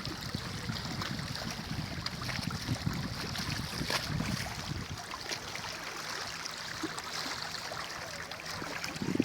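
Wind buffeting the microphone over a steady hiss of sea surf; the low rumble of the wind drops away about halfway through.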